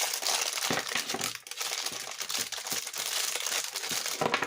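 Continuous crinkling and rustling of packaging being handled and unwrapped, with irregular small crackles throughout.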